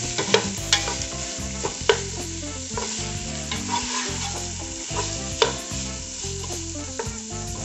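Beef chunks, onions, mushrooms and yellow pepper sizzling in a nonstick pot while being browned and stirred with a wooden spoon. A few sharp knocks of the spoon against the pan stand out from the sizzle.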